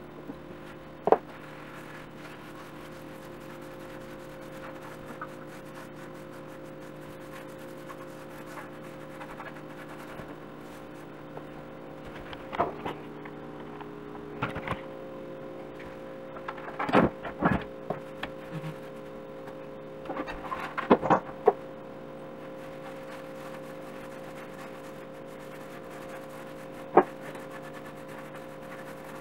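Scattered knocks and clunks from a metal can and a pine board being handled on a stone countertop during rag-on wood finishing, over a steady hum of held tones.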